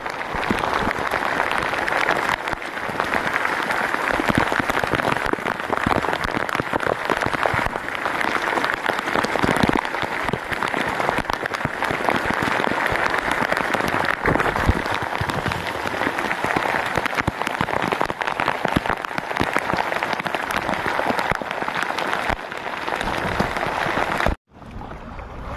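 Rain falling on a plastic raincoat close to the microphone: a steady, dense crackle of drops. It cuts out abruptly for a moment near the end.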